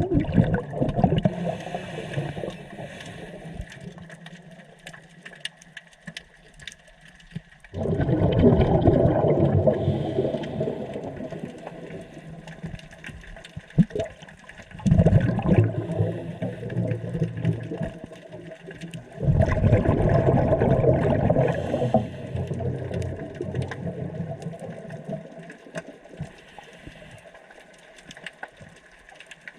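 Scuba diver's regulator breathing underwater: four bursts of exhaled bubbles, each a few seconds long, with quieter pauses between them, and a single sharp click about halfway through.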